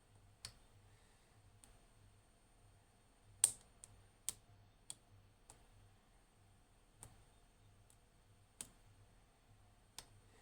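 Small, irregularly spaced metallic clicks of a lock pick and tension tool working the pins of a 5-pin ABUS padlock cylinder during single-pin picking, with one sharper click about three and a half seconds in.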